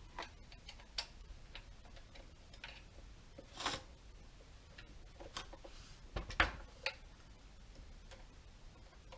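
Scattered light clicks and knocks of chainsaw parts and a hand tool being handled during assembly, irregular and a few per second at most, with the loudest knocks about three and a half and six seconds in.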